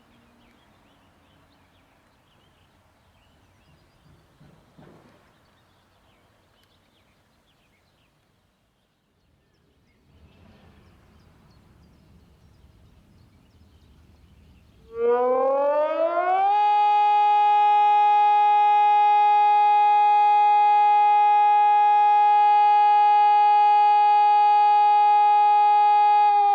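Sonnenburg SES 600 electronic siren starting the 'Feueralarm' fire alarm signal of a siren test after about fifteen seconds of quiet background. It comes in about fifteen seconds in, rises in pitch for a second or two, then holds one loud steady tone rich in overtones.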